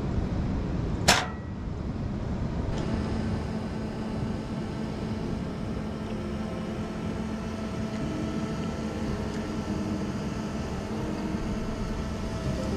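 Steady low rumble of wind on the microphone with a faint hum, and one sharp knock about a second in.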